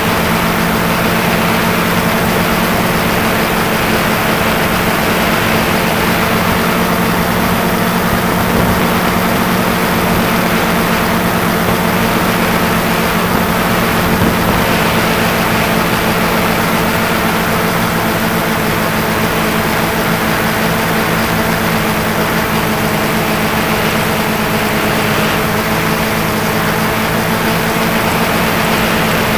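Small multirotor drone's electric motors and propellers whining steadily, picked up by the drone's own on-board microphone, with a constant rush of air over it.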